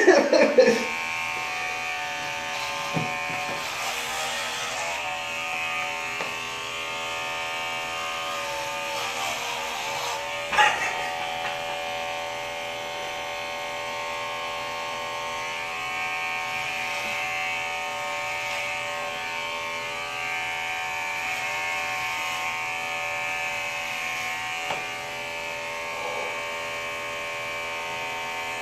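Corded electric hair clippers running with a steady buzz as they cut through long hair. Two short bursts of voice cut in, one at the very start and one about ten seconds in.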